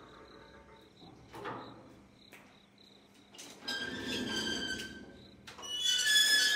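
Collapsible steel scissor gate of an old lift being slid open, its metal squealing and rattling in two pushes: one about halfway through and a louder one near the end.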